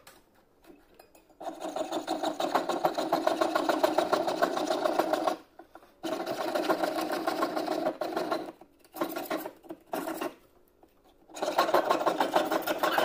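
Jeweler's saw piercing silver: the fine blade, threaded through a drilled hole, rasps in rapid back-and-forth strokes. It comes in three spells with short breaks, starting about a second and a half in.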